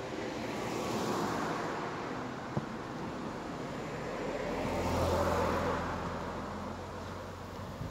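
Road traffic: vehicles passing, one about a second in and a louder one around the middle, carrying a low engine hum that swells and fades.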